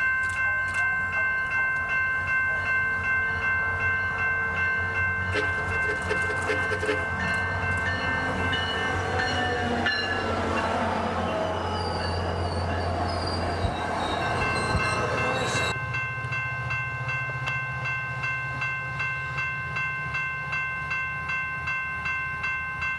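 Railroad crossing bell ringing steadily at an even beat while a SunRail MP32PH-Q diesel locomotive and its bilevel coaches approach and pass. The engine drone and wheel-on-rail noise swell past in the middle and drop away abruptly about two-thirds through, leaving the bell.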